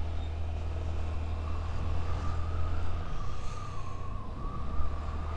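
Honda Activa 125 scooter being ridden, its engine running under a heavy wind rumble on the microphone. From about a second and a half in, a thin whine wavers slightly in pitch.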